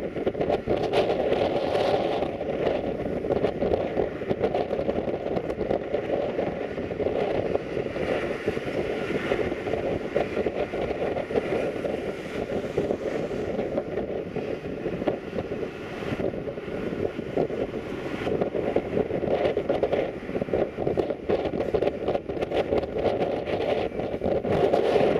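Distant fireworks: a continuous rumbling din with dense crackling pops, steady throughout.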